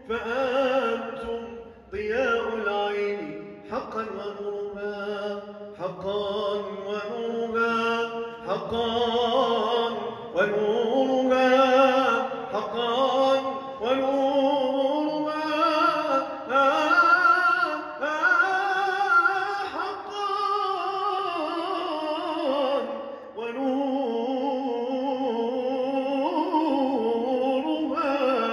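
A man singing a solo mawwal, a free-rhythm Arabic vocal improvisation, through a microphone. He sings long melismatic phrases with a quick wavering pitch, broken by short pauses for breath.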